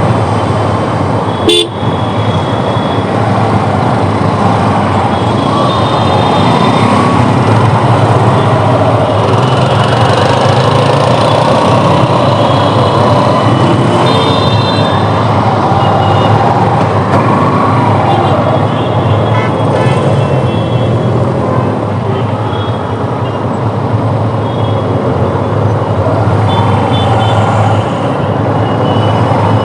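Heavy city traffic at a standstill: vehicle engines running at low speed with short horn toots sounding here and there, more often in the second half. A single sharp knock about a second and a half in.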